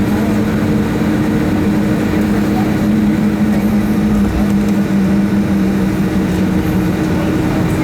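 Boeing 757-200 cabin noise with the engines running: a steady rush of air with a low, even engine hum, whose pitch dips slightly about four seconds in.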